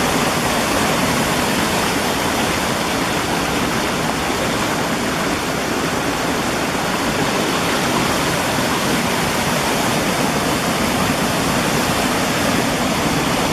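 Waterfall rushing, a steady, loud roar of falling water.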